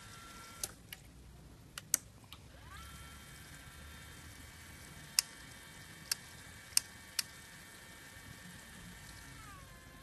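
Alpha Smart 18i instant water heater's buttons and control knob being worked while it is tested dry, without water: a series of sharp clicks, then from about three seconds in a steady whine with several tones, interrupted by four more clicks and dipping in pitch near the end.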